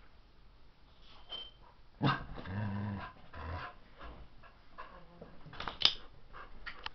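A dog growling, starting suddenly about two seconds in and lasting a second or so, then scuffling and sharp clicks as it goes after a wasp.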